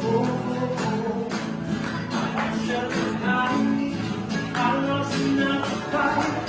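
Upbeat dance music with guitar and singing over a steady beat.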